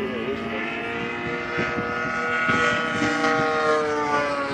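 50cc gas engine of a radio-control Edge aerobatic plane running in flight, with a steady drone whose pitch wavers slightly and falls near the end.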